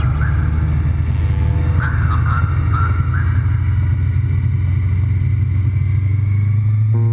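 Honda VFR750's V4 engine running steadily while the motorcycle cruises, a steady low drone with wind and road noise.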